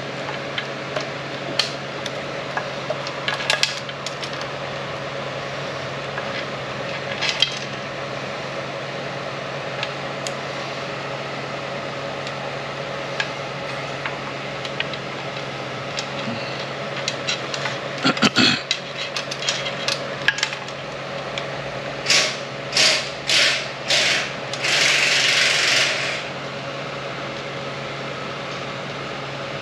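Light clicks and knocks of automatic-transmission parts being handled and fitted, over a steady background hum, with a brief cluster of knocks about two-thirds of the way through. Near the end come four short hisses, then one longer hiss lasting about a second and a half.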